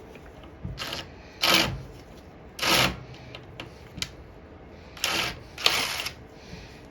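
Ratchet wrench clicking in five short bursts as it runs a carburetor mounting bolt in.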